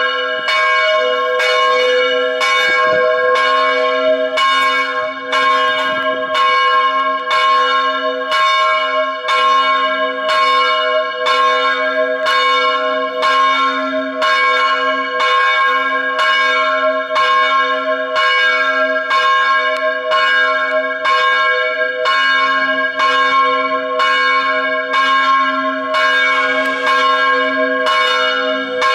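Church bell ringing in an even, continuous series of strokes, about one and a half a second, each stroke's tone ringing on under the next.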